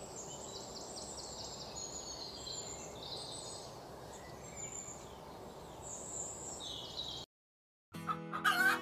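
Small birds chirping and trilling high over a steady outdoor background hiss. It cuts off abruptly about seven seconds in, and a pitched, musical sound starts just before the end.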